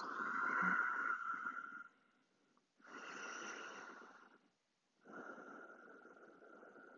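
A person's slow, audible breathing during a held child's pose in yoga: three long breaths, each lasting about one and a half to two seconds, with short pauses between them.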